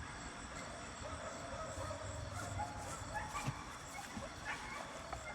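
Faint bird calls: scattered short chirps and call notes over low background noise.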